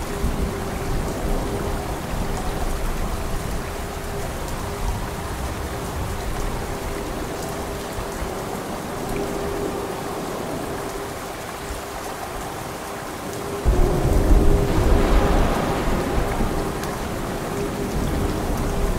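Steady heavy rain falling, with a sudden clap of thunder about two-thirds of the way through that rolls on as a deep rumble for a few seconds before easing off.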